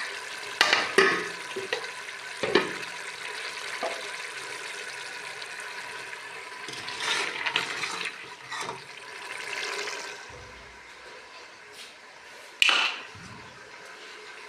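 Beef frying in hot ghee in a pot, sizzling with a steady hiss while a spoon stirs and scrapes it, knocking sharply against the pot several times, the loudest knock near the end.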